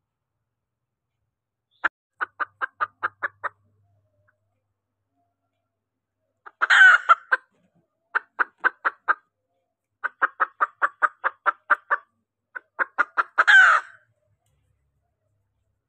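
Female junglefowl clucking in quick runs of short, evenly spaced clucks, broken by two louder, longer, harsher calls, one about seven seconds in and one near the end. This is the hen's call that draws cock birds in.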